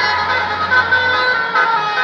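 Indonesian bus's basuri telolet horn, a set of air-horn trumpets, playing a tune of held notes that change pitch every fraction of a second. Under it is a low hum that drops away about a second and a half in.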